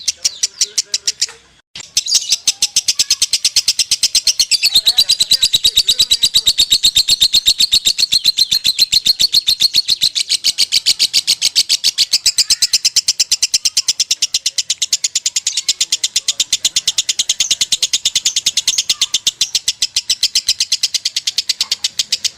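Lovebird singing a long, unbroken chattering song, a fast even run of high chirps at about five a second after a brief pause near the start: the continuous 'konslet' style of delivery.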